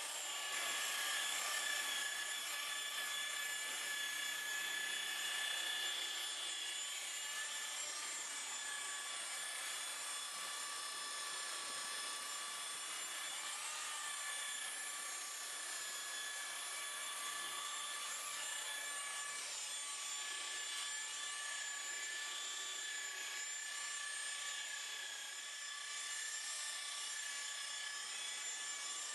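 Electric rotary polisher with a wool buffing pad running at a constant speed, its motor giving a steady whine while the pad rubs over the car's paintwork to polish it.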